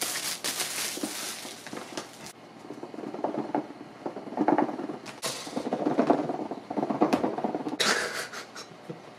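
Hands working an iPad's cardboard retail box, peeling at its seal and rubbing and sliding against the cardboard. The scratchy rustling is loudest for the first two seconds and again briefly near the end, with softer scraping in between.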